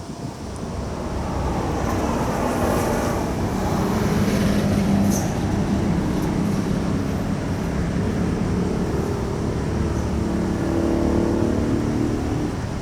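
An engine running close by, swelling over the first couple of seconds and then holding steady, with a low rumble and a few steady low tones.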